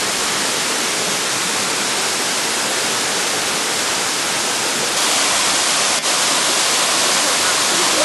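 Waterfall pouring into its plunge pool: a dense, steady rush of falling water. It steps up a little louder about five seconds in, with a momentary dropout a second later.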